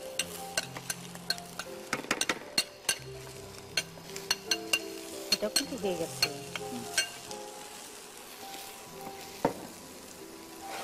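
Spatula stirring rice in a non-stick frying pan, with repeated knocks and scrapes against the pan that thin out after about seven seconds, over a light sizzle of frying.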